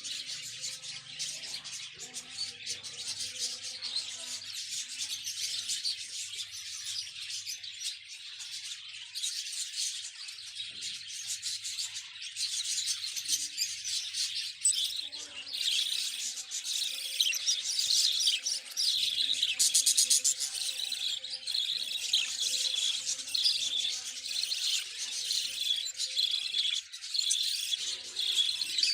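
A flock of show budgerigars chattering: a dense, continuous mix of chirps, warbles and squeaky calls, growing busier and louder about halfway through.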